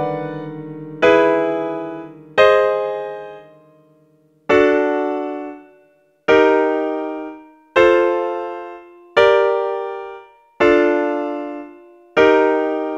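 Piano chords struck one at a time, about every one and a half seconds. Each chord rings out and fades before the next: eight chords in all.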